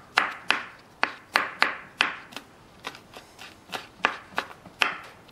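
Kitchen knife chopping garlic cloves on a wooden cutting board: quick, uneven knocks of the blade on the board, about three a second, stopping shortly before the end.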